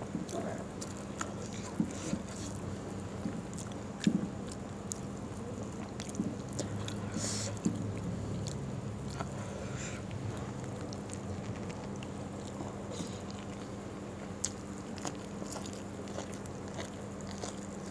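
A person eating by hand: chewing, and fingers picking at rice and fried food on a plate, with scattered small clicks and taps, over a steady low hum.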